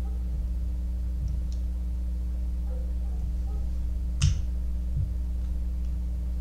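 A single sharp click about four seconds in, then a softer knock, over a steady low hum: a padlock and small tools being handled as the lock is taken apart.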